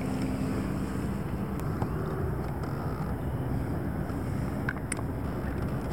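Wind buffeting the microphone, a steady low rumble, with a faint tick or two near the end.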